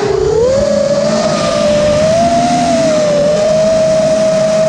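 Brushless motors and propellers of a 5-inch freestyle FPV quadcopter whining in flight, heard close up through its onboard camera. The pitch dips briefly near the start, then climbs and holds fairly steady, wavering slightly as the throttle changes.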